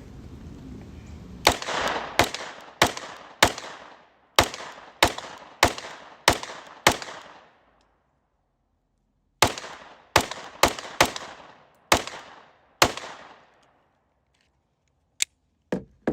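Glock 19C 9mm pistol with a ported barrel firing two strings of rapid shots, about nine and then six, roughly half a second to a second apart, each crack with a ringing tail. Two shorter, sharper cracks come near the end.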